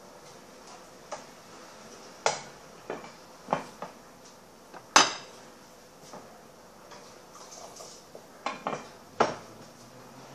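Dishes, pots and utensils clattering in a kitchen: irregular knocks and clinks, with the loudest one about five seconds in and a quick cluster near the end.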